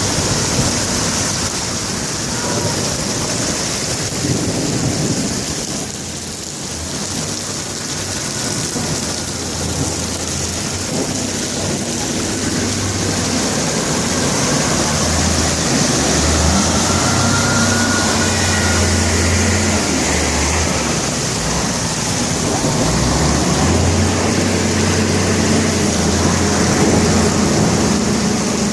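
Heavy rain pouring down steadily, with a low rumble that comes and goes.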